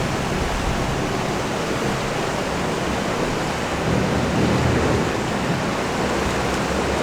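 Steady rain, an even hiss, with a low rumble underneath that swells about four seconds in.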